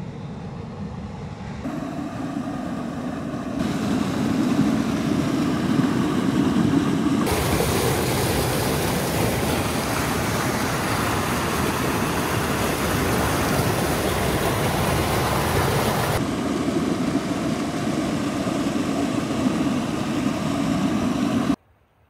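Waterfall cascades, water rushing in a steady noise. It is cut together from several takes that step louder and softer, and it stops abruptly near the end.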